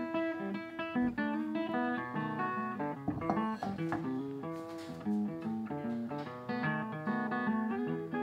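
Background music: an acoustic guitar plucking a melody, note after note.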